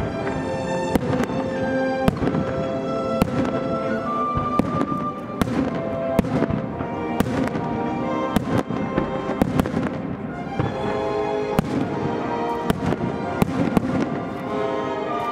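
Aerial firework shells from Kikuya Obata bursting in sharp reports about once a second over continuous background music.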